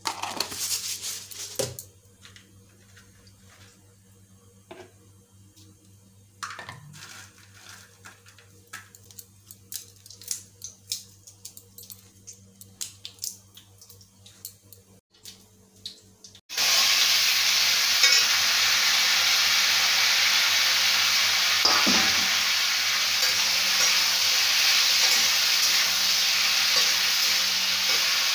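A metal spoon clinks and scrapes in a kadai, clattering at first and then in scattered light ticks. A little past halfway a loud, steady sizzle starts suddenly: chopped vegetables frying in hot oil in the kadai.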